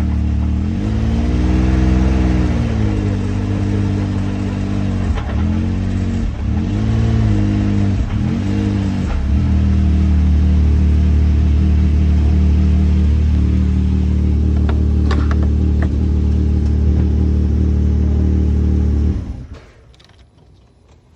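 Can-Am Maverick X3 Max XRS Turbo RR side-by-side's turbocharged three-cylinder engine running. It is revved up and back down once, blipped a few more times, then held steady, and shut off about nineteen seconds in.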